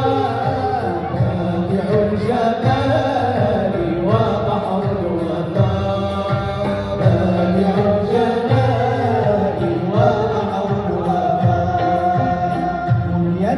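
Moroccan samaa and madih devotional chant: a group of men sing together to an oud accompaniment.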